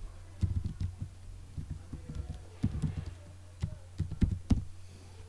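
Keystrokes on a computer keyboard as a name is typed in, irregular clicks over a steady low hum.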